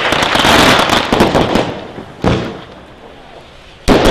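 Consumer fireworks going off: a dense, rapid crackling for about the first second and a half, then a single bang a little after two seconds in, and another loud bang near the end.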